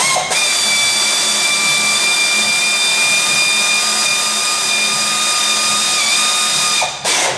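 Electric drill-driver running steadily with a high whine for about seven seconds while tightening engine-bracket bolts on an ATV frame, the pitch dipping briefly near the end, then a short second burst.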